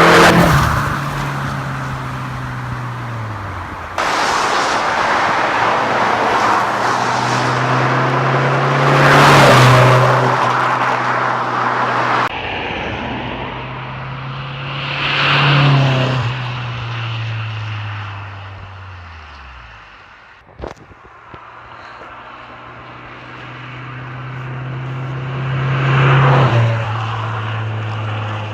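Lotus Elise S2's Rover 1.8 K-series four-cylinder engine, fitted with an air induction kit, heard in a series of drive-bys: four times the car's steady engine note swells as it approaches and drops in pitch as it passes. A single sharp click sounds about two-thirds of the way through.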